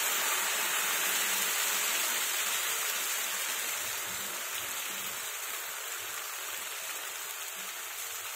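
Thin rava dosa batter sizzling as it is poured from a ladle onto a hot dosa tawa: a steady hiss that slowly dies down.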